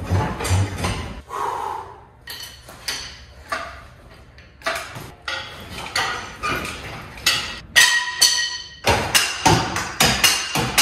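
A quick, irregular run of sharp knocks and clanks, some with a brief metallic ring.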